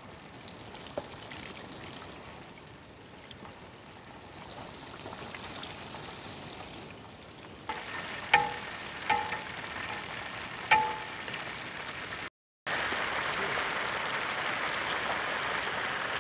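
Hot oil sizzling steadily around whole chickens deep-frying in a large pan. In the middle come a few sharp, ringing metal clinks as a perforated metal skimmer knocks against the pan. After a brief cut-out the sizzling comes back louder and steady.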